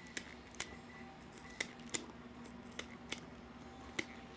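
Work sounds in a shoe repair shop: about eight sharp, crisp clicks at uneven intervals, over a steady low hum.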